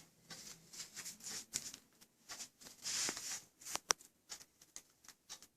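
A spoon spreading whipped sour-cream cream over a layer of crackers: a run of soft, quick scraping swishes, with a sharp clink about four seconds in.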